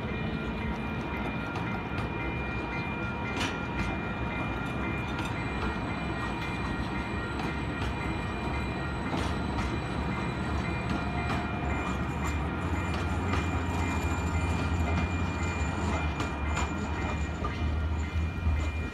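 Calgary C-Train light-rail train passing through a level crossing: a low rumble that grows louder in the second half, with occasional sharp wheel clicks. The crossing's warning bell rings steadily throughout.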